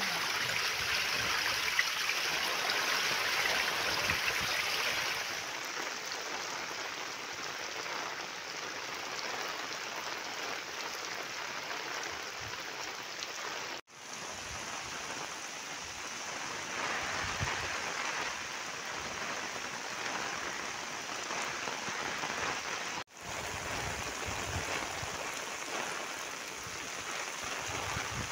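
Heavy rain falling, with muddy runoff water flowing over a flooded street: a steady hiss, louder in the first five seconds, that cuts out for an instant twice.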